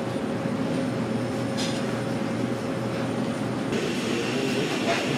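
Steady low background noise, with no clear single source; it turns brighter and hissier about three and a half seconds in.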